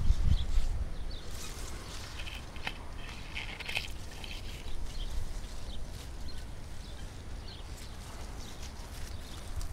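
Outdoor field ambience: a steady low rumble of wind on the microphone with scattered faint bird chirps, and some rustling as a hand pushes through watermelon leaves.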